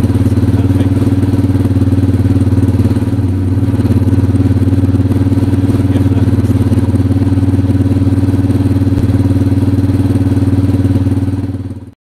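Motorcycle engine running steadily at idle, with a slight dip about three seconds in, then fading out just before the end.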